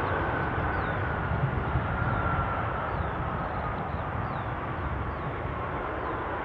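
Jet aircraft engines running: a steady rush of engine noise with a thin whine that slowly falls in pitch.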